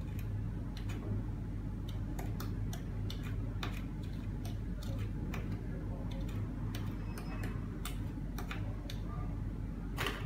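Sodium acetate crystals shaken from a plastic bag into a glass beaker, making irregular light ticks several times a second, with a louder click near the end, over a steady low hum.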